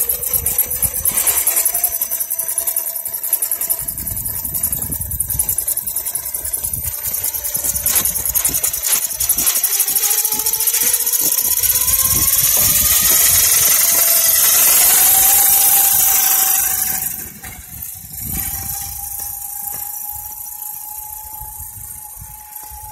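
Losi DBXL 1/5-scale electric buggy's Castle Creations Mamba XLX 8S brushless motor and drivetrain whining under load as it tows a heavy RC truck over asphalt. The whine rises in pitch as it speeds up, then drops sharply about seventeen seconds in and keeps fading as the buggy moves away.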